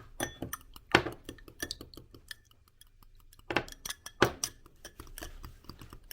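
Light clicks and clinks of dishes and utensils being handled, with sharper knocks about a second in and twice more a little past the middle.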